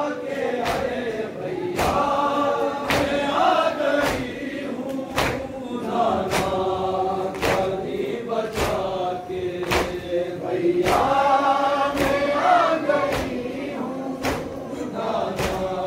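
Men chanting a noha, a Shia lament, in unison, kept in time by sharp rhythmic slaps about once a second, the chest-beating of matam.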